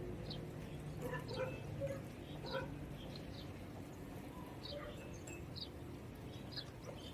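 Small birds chirping outdoors: short, high chirps repeating every half second or so, faint, with a few lower call notes a second or two in.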